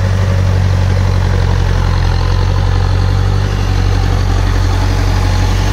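Tractor diesel engine running steadily under load while pulling a rotavator through wet paddy-field mud.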